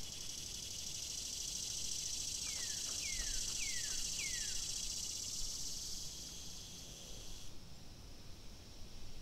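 Nature ambience: a steady high insect chorus, with a bird giving four quick descending whistles about two and a half to four and a half seconds in. The insect sound drops away abruptly about seven and a half seconds in.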